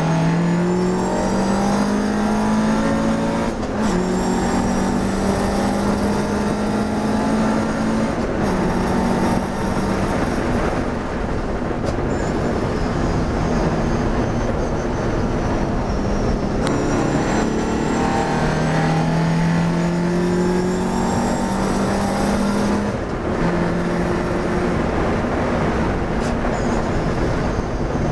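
Classic racing car's engine at race pace, heard from inside the cockpit. Its note climbs under acceleration and drops back several times at gear changes and lifts through the corners.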